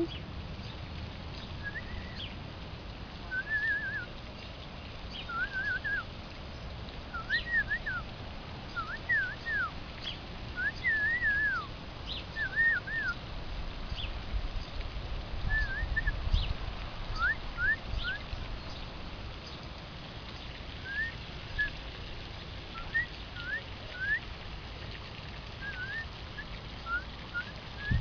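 Short whistled chirps, slurred up-and-down notes repeated every second or two, with a few sharp high chips between them, over a low rumble.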